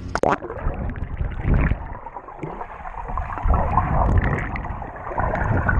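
Muffled water splashing and gurgling in a swimming pool, picked up close by a GoPro camera in the water, with irregular surges and low rumbles.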